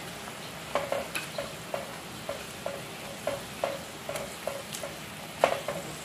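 Curd (yogurt) gravy of a fish curry bubbling and sizzling in a frying pan, with small pops two or three times a second and a sharper pop about five and a half seconds in.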